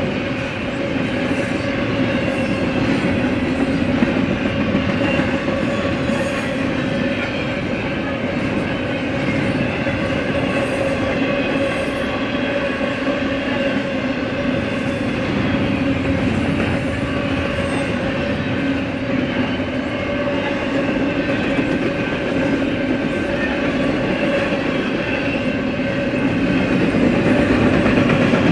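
Double-stack container freight train rolling past: a steady run of wheels on rail with a clickety-clack and a steady squealing whine from the wheels over it.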